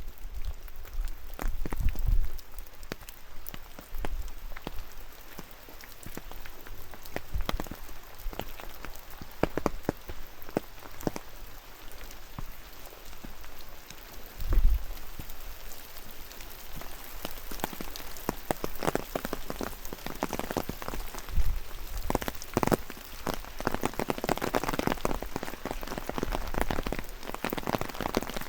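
Rain falling, with many separate drops striking close by, growing denser in the second half. A few low thumps come and go.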